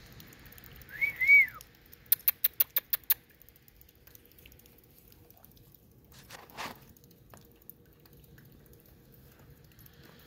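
Two huskies playing tug with a leash in snow. About a second in comes a short high two-note sound that rises and falls twice, followed by a quick run of about seven light clicks, then a single short huff a few seconds later.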